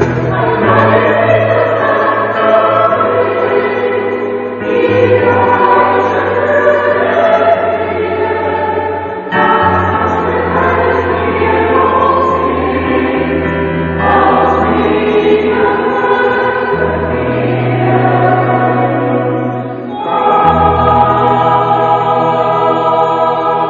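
Choir singing in long held chords, moving to a new chord every few seconds over a low bass line.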